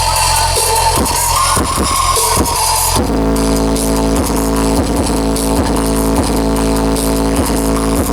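Electronic dance music played loud through a large sound system, with heavy bass. About three seconds in, it changes to a dense held synth chord over a pulsing beat.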